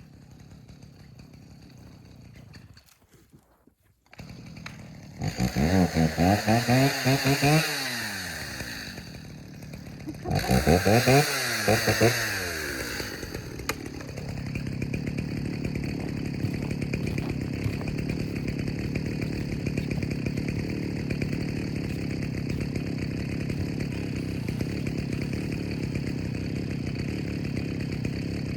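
A two-stroke chainsaw comes in about four seconds in, is revved hard twice with the pitch falling away after each rev, then settles into a steady idle.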